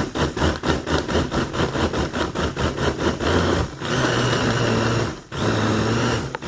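Countertop blender running, chopping green onions, garlic and peppers with a little water into a liquid seasoning. It sounds choppy and uneven at first as the blades hit chunks, then runs smoother about four seconds in, with a brief stop a little after five seconds in.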